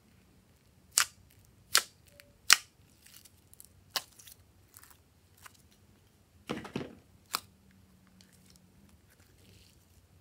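Pink glossy slime being squeezed and pulled by hand, giving sharp pops: three loud ones in the first few seconds, then softer pops, a short squishy crackle past the middle and one more pop.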